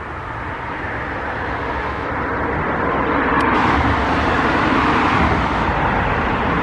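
Road traffic on a main road: a passing vehicle's tyre and engine noise that grows louder over the first few seconds and stays loud.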